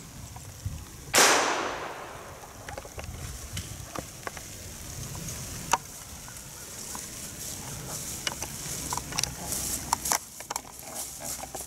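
A single gunshot about a second in, echoing through the woods for about a second as it fades. Light rustling footsteps in dry leaves follow near the end.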